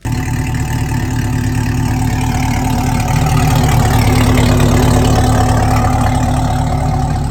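Chevrolet Corvette C8's 6.2-litre V8 engine running at idle, loud and steady, swelling a little around the middle and easing slightly near the end.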